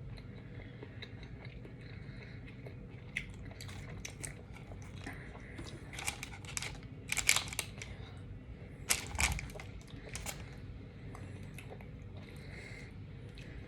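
Close-up chewing and biting of a sub sandwich: wet, crunchy mouth sounds and small crackles, heaviest in a cluster around the middle.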